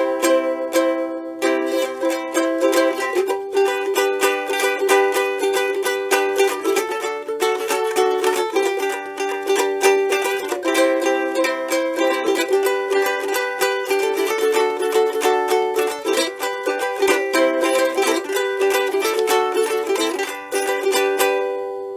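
Home-built cigar box ukulele strummed in a steady rhythm, playing a run of chords that fades out near the end.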